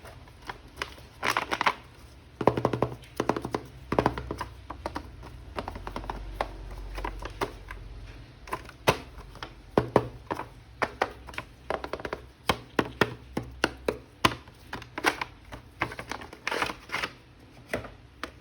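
Hands opening and handling a plastic action figure and its packaging: irregular crinkles and sharp plastic clicks and taps, coming in quick clusters.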